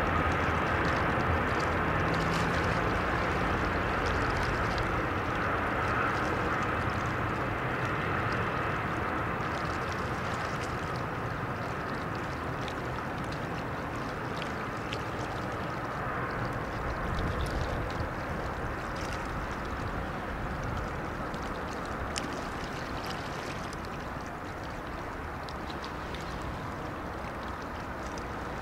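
Distant container freight train rolling past along the far side of a river, a steady rumble and wheel noise that slowly fades as the train moves away.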